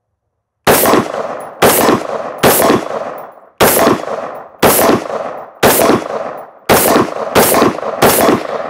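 Daniel Defense MK18 short-barrelled AR-15 pistol firing 77-grain .223 Remington rounds semi-automatically: a string of about nine single shots, roughly one a second, each with a short ringing tail.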